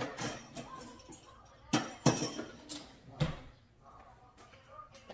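Kitchen utensils being handled: clinks and a few sharp knocks, the loudest a pair just under two seconds in and another about a second later.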